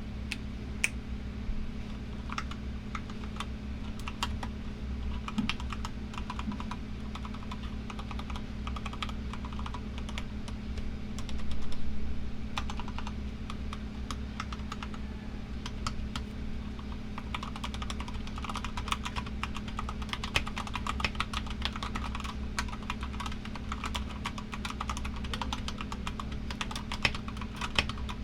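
Typing on a GK64XS mechanical keyboard with Keyfirst Gateron Cream linear switches, lubed with Krytox 205g0, under XDA keycaps on a fibreglass plate: a run of clacking keystrokes that grows faster toward the end. A loud air conditioner hums steadily underneath.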